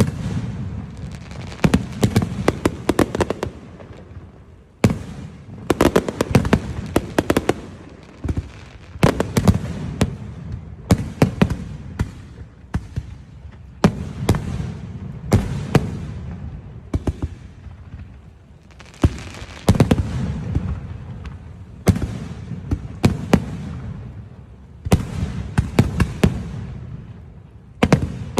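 Fireworks display: aerial shells bursting in rapid volleys of sharp bangs and crackling, a new cluster every one to two seconds, each over a low rumbling boom that fades.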